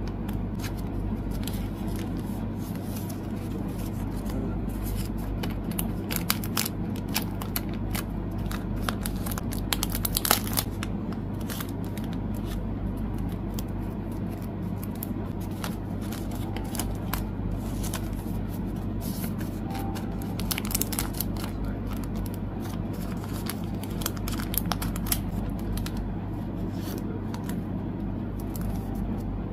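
Photocards being handled and slid into clear plastic sleeves: crinkling plastic and light irregular clicks and rustles of card, with a louder flurry about ten seconds in, over a steady low hum.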